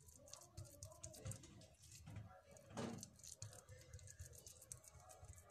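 Faint soft patting and squishing of hands pressing raw minced-meat filling flat onto a round of dough, with one louder brush about three seconds in.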